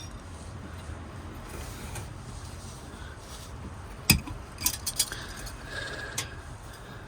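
Wind rumbling on the microphone, with a few sharp clinks and knocks, the loudest about four seconds in and a quick cluster just after it.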